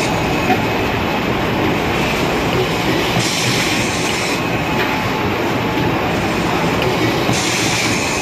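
Automatic kitchen towel packing machine running, a dense steady mechanical noise of its conveyor and wrapping mechanism. A brighter hiss swells in twice, about four seconds apart.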